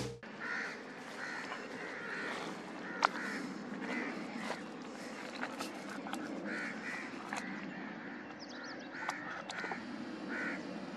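Crows cawing again and again, fairly faint, with a few light clicks between the calls and one sharper click about three seconds in.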